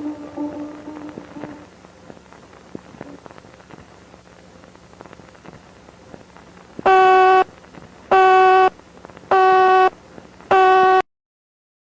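Emergency alert recording: a held tone fades out, then a crackling static hiss, then four evenly spaced buzzy electronic beeps of one pitch, each about half a second long and about a second and a quarter apart. The sound cuts off abruptly after the fourth beep.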